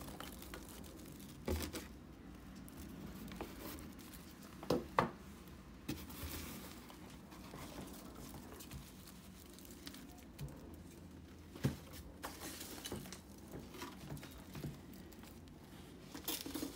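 Crinkling and rustling of plastic wrap and foam packing peanuts as small potted plants are handled and unpacked, broken by a few sharp knocks, the loudest about five seconds in and near twelve seconds.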